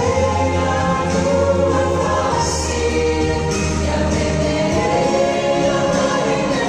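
Church choir singing a Christian cantata song in held, sustained chords over instrumental accompaniment. A steady low bass note sounds under the voices for the first four and a half seconds, then changes.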